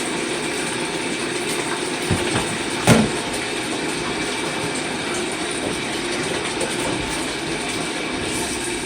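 Water running steadily into a tub as a vacuum cleaner's long tube is rinsed, with one sharp knock about three seconds in.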